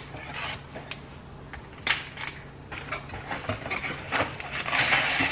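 Scattered light clicks and knocks of small objects being handled, the sharpest about two seconds in, over a faint low steady hum.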